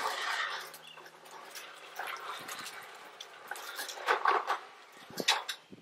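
Short clicks and knocks of a pressure washer's spray wand and trigger gun being handled and fitted together, a few sharp ones clustered near the end.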